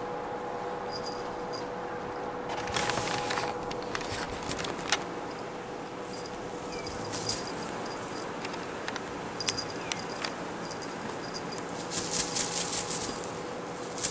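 Shiny mylar streamers of a wand cat toy crinkling and rustling as they are dragged and flicked across a blanket. The rustle comes in two main bursts, about three seconds in and again near the end, with scattered light ticks between. A faint steady hum runs underneath.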